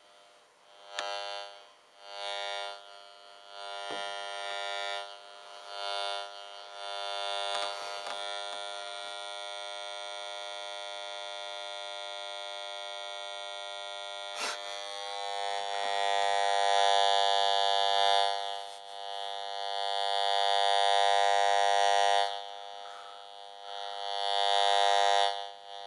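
An old alarm clock radio buzzing from interference picked up from a VTech cordless phone held near it: a steady, pulsing electronic buzz that swells louder and fades back several times, loudest in the second half, with a click about halfway through.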